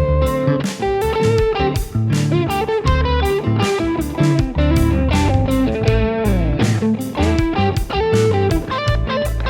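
Xotic XSC-2 electric guitar played through a Milkman Sound Dairy Air amp: a lead line of held, ringing notes with a downward slide a little past halfway. A backing track with drums and bass plays under it.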